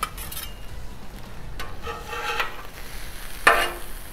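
Metal spatulas scraping across the steel top of a Blackstone flat-top griddle, turning a pile of chorizo, egg and hash browns, over a steady sizzle. There are three scraping strokes, near the start, around the middle and near the end, with a slight metallic ring.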